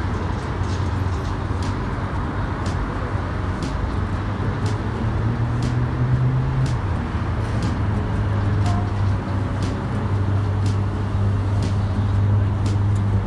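Steady road traffic noise, with the low hum of vehicle engines running throughout.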